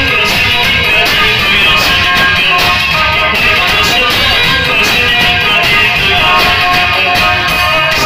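Live Black Sea folk music, a kemençe tune over a steady band beat with plucked-string accompaniment.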